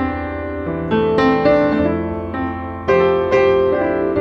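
Piano music: a slow tune of chords, each struck and left to ring and fade before the next.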